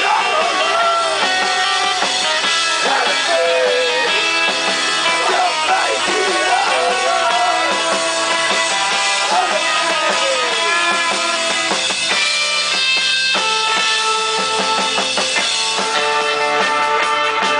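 Live rock band playing: electric guitars, bass and a Sonor drum kit, with a lead line bending up and down in pitch through the first half.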